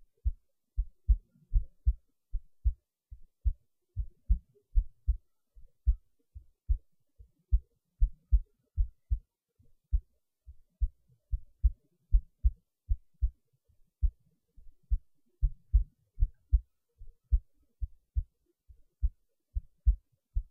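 Recorded heartbeat: short, low thumps in a quick, steady rhythm, about two to three a second.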